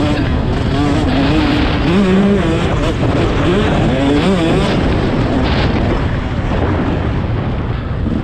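Dirt bike engine revving up and down as it is ridden hard, its pitch climbing and dropping again several times.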